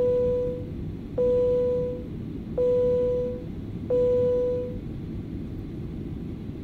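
The Boeing 737-500 cabin chime sounds four times, the same single tone each time, evenly spaced about a second and a half apart and fading after each stroke, over the steady rumble of the airliner's cabin.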